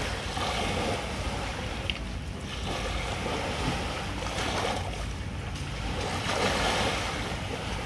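Small waves washing onto a sandy shore, swelling about every two seconds, with wind rumbling on the microphone.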